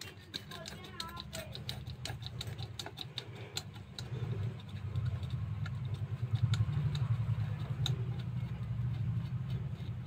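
A screwdriver working a rusted screw loose from the steel brake plate of a washing machine spin motor: a run of small irregular clicks and scrapes of metal on metal. Under it is a low rumble of the plate being handled, louder in the second half.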